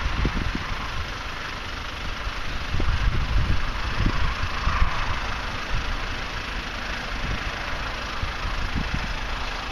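Wind gusting across the microphone: irregular low rumbling buffets over a steady rushing hiss.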